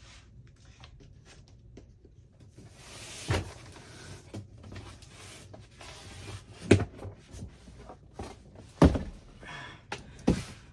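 A heavy cardboard box being opened and handled: rustling and scraping, with four dull thumps spaced a couple of seconds apart.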